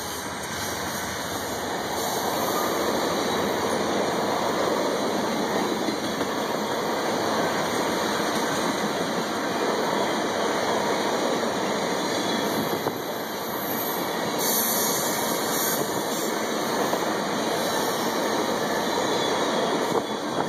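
Freight train of ethanol tank cars rolling past at close range: steady noise of steel wheels running on the rails.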